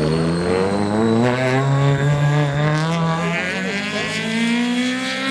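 Peugeot 208 rally car's engine at full throttle, its pitch climbing steadily as the car accelerates away.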